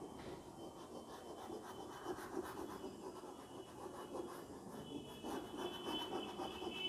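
Chalk scratching and rubbing on a blackboard in rapid back-and-forth strokes as an area is shaded in.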